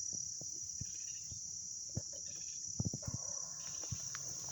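A steady, high-pitched chorus of insects, unbroken throughout, with a few soft knocks about three seconds in.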